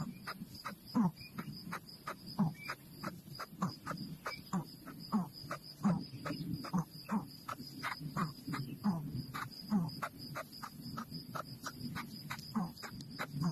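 Frogs croaking in quick succession, about three or four calls a second, over an insect's steady high-pitched trill.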